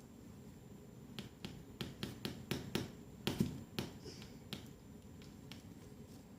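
Sticky homemade slime being mixed and squeezed by hand, giving a run of irregular sharp clicks and snaps, thickest between about one and four and a half seconds in.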